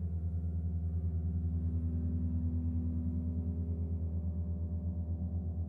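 Earth and Moon planetary gongs ringing on in a deep, sustained drone, with a fast, even pulsing in the sound.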